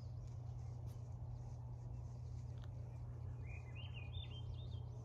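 A songbird singing one short phrase of rising, stepped whistled notes about three and a half seconds in, over a steady low rumble.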